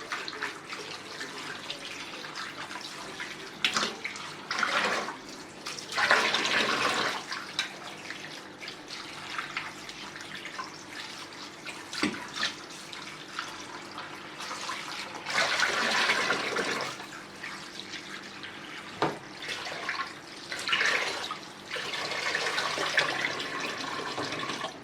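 Kitchen tap running in several short spells into the sink as raw chicken feet are rinsed under it, with a few light knocks in between.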